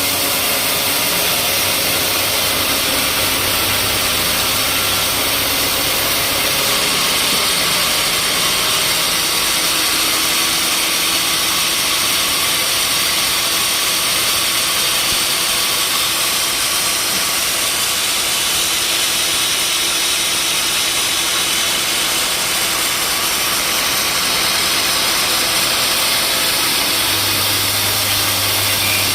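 Sawmill machinery running steadily with a continuous loud mechanical noise; a low hum underneath fades out about six seconds in and returns near the end.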